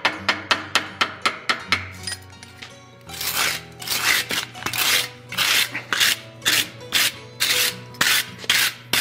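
Quick hammer taps on red-hot steel held in a vise, about three or four a second, then from about three seconds in long rasping strokes, about two a second, as a hand tool is scraped across the hot steel, throwing sparks.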